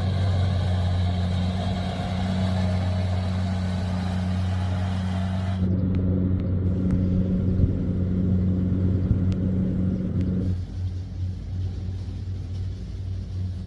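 Rice combine harvester's engine running steadily under load, a low drone with a deep hum. The sound changes abruptly about six seconds in, losing its higher hiss, and thins again near ten seconds.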